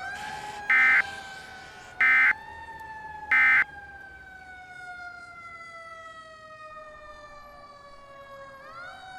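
Three short screeching bursts of EAS end-of-message data tones, evenly spaced a little over a second apart. Under them a siren rises, slowly falls in pitch, and climbs again near the end.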